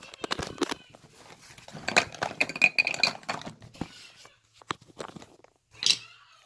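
Light clicks and clatter of small objects being handled close to the microphone, with a brief high squeak about two to three seconds in.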